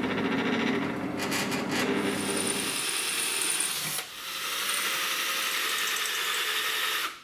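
A drill press running and drilling, then, after a sudden change about four seconds in, a handheld power drill boring a hole through a thin steel cutter cut from a bandsaw blade, clamped to a wooden block.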